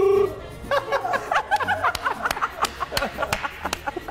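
A short held voice at the very start, then several people laughing and giggling in quick broken bursts over a steady background music track.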